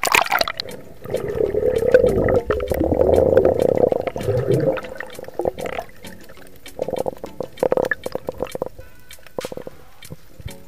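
A sudden splash as the camera goes under the surface, then a few seconds of loud underwater rushing and bubbling. This fades into scattered sharp clicks and knocks of water movement heard underwater.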